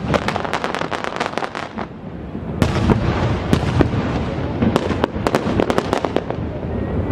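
Fireworks going off in rapid volleys of sharp bangs and crackles, with a short lull about two seconds in before a fresh barrage.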